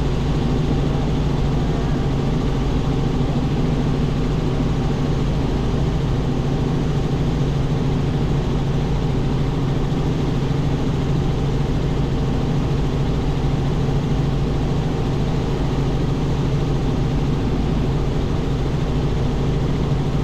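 Robinson R44 helicopter in flight, heard from inside the cockpit: its six-cylinder Lycoming piston engine and rotors running steadily as an even, unbroken hum with a strong low tone.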